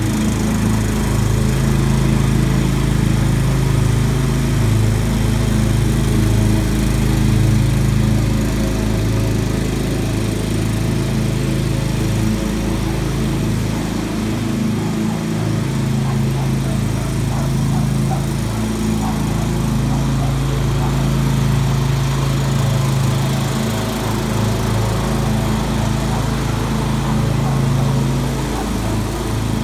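Petrol lawn mower engine running steadily, its pitch wavering slightly now and then.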